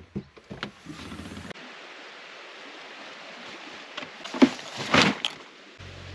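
Steady outdoor hiss with a few sharp knocks and thumps at the start and again about four to five seconds in, and a low steady hum coming in near the end.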